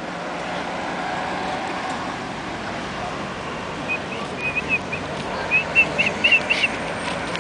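Steady outdoor background noise of a town street, with two short runs of quick, high chirps from about four seconds in.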